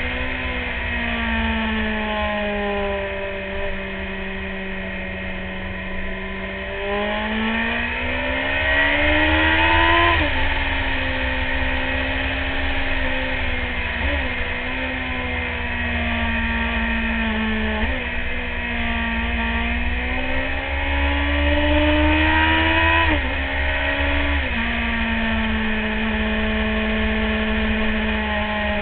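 Sport motorcycle engine heard onboard, its revs falling, then climbing and dropping sharply at several gear changes. Wind buffets the microphone throughout.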